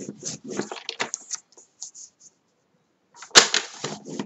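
Heavy cardstock being handled and slid across a plastic scoring board: a run of short rustles and taps, a pause of about a second, then a sharp, loud slap about three and a half seconds in, followed by more rustling.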